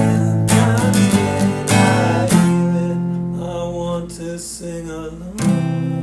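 Song with strummed acoustic guitar and a sung melody: the chords are struck and left to ring, with a fresh strum about two seconds in and again near the end, and the music gradually getting quieter.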